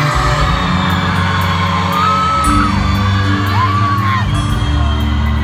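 Live pop band playing a slow instrumental introduction, with long held bass notes, recorded from within the audience. A couple of high whoops come from the crowd, about two and four seconds in.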